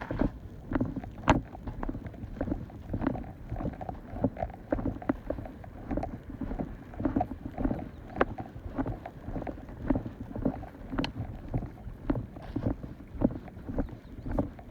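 Small waves lapping and slapping irregularly at the water's edge, with a few sharp knocks and wind buffeting the microphone.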